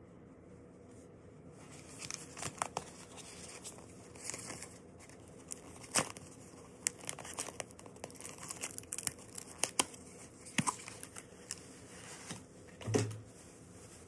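Clear tape being peeled off a cardboard product tag and the card handled: scattered crackles and short tearing sounds, starting about two seconds in, with a soft thump near the end.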